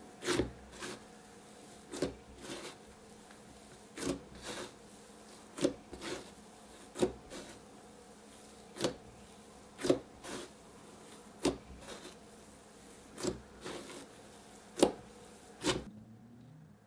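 Slime being pressed and squished by hand, giving short crackly pops and clicks about once every second or so, some in quick pairs.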